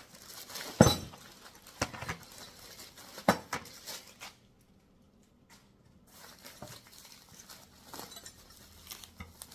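Sharp knocks and clinks of a tool tray and the small loose parts in it being handled and unpacked, the loudest about a second in and again about three seconds in, with a short lull in the middle and fainter clicks near the end.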